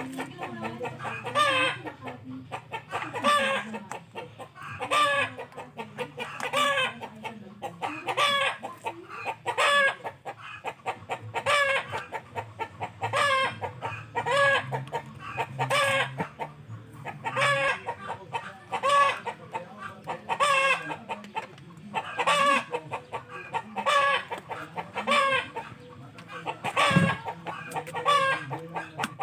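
An animal calling over and over, one short pitched call about every second and a half to two seconds, with a low hum underneath in parts.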